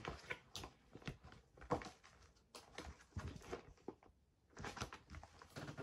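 Scattered soft rustles and light knocks from cardboard and paper items being handled and set down, faint throughout.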